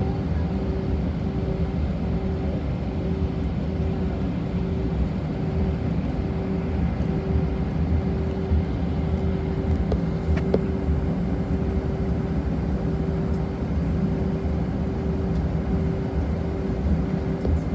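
Airliner cabin noise: a steady engine drone with a deep rumble and a constant mid-pitched hum, with one brief click about halfway through.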